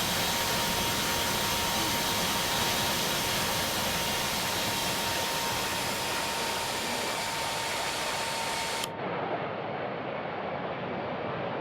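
Jet aircraft engines running as a steady rushing roar with a thin, steady whine. About nine seconds in, the whine and the hiss cut off abruptly, leaving a duller rush.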